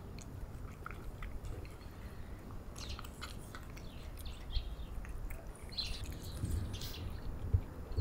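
Cats chewing wet cat food from a bowl: quick, irregular wet smacking and clicking, with a few bird chirps in the background.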